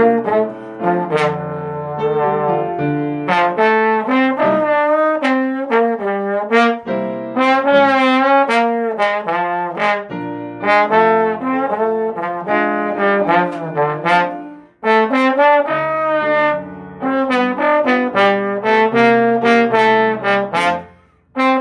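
Slide trombone played solo: a melody of separate notes, one held note with vibrato about eight seconds in, and brief breath pauses about fifteen seconds in and just before the end.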